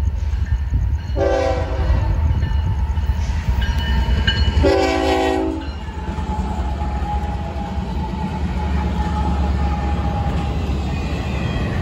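Florida East Coast GE ES44C4 diesel locomotive sounding its horn twice for the grade crossing, the second blast louder, each about a second long. From about six seconds in, the locomotives pass close by with a steady low diesel rumble and wheel noise on the rails.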